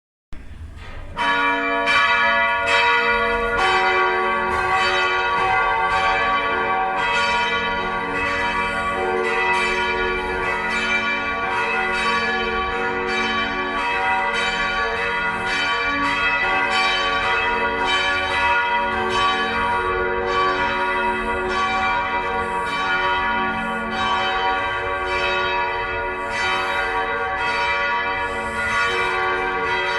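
Several church bells ringing together in a loud, continuous peal, their strokes overlapping so the ringing tones blend into one another. The peal starts about a second in.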